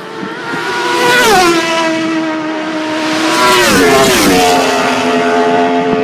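Racing superbike engines at full throttle going past at speed. The engine note drops sharply about a second in and again near four seconds, as each machine goes by.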